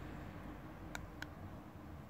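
Two short sharp clicks about a quarter second apart, a little under a second in, from a handheld non-contact infrared thermometer as its button is pressed, over a faint low background rumble.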